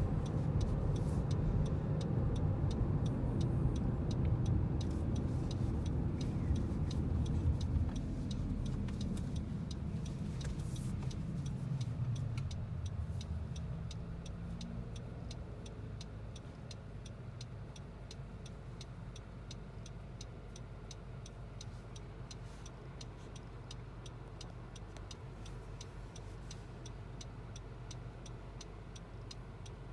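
Car road noise: a low rumble that dies down over the first dozen seconds as the car slows, leaving a quieter steady hum, with a light regular ticking throughout.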